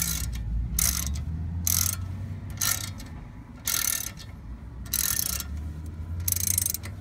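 Socket ratchet wrench clicking in about six short strokes, roughly one a second, as a brake caliper bolt is tightened after a pad change.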